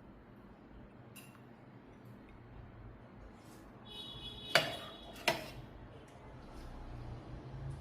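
Dishware clinking twice in quick succession, the first strike ringing briefly, over quiet room background.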